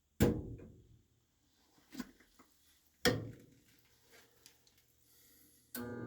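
Two sharp clicks about three seconds apart with a fainter one between, then near the end a York gas furnace motor starts, a steady hum with a whine rising in pitch as it spins up.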